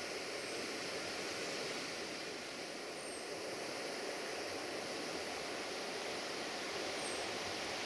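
Steady rushing of river water, with three brief faint high chirps.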